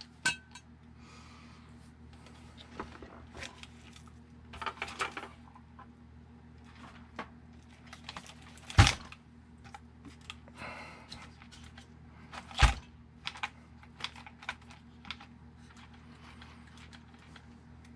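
A 1/8-scale RC buggy, a Kyosho Inferno MP10e, handled on a workbench: scattered clicks and light rattles from its chassis and suspension. Two heavy thumps, about 9 and 13 seconds in, come as the buggy is set down on the bench.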